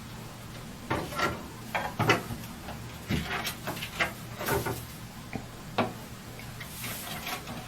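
Irregular clicks and knocks as a scarlet macaw moves about, its claws and beak tapping on hard bathroom surfaces, over a steady low hum.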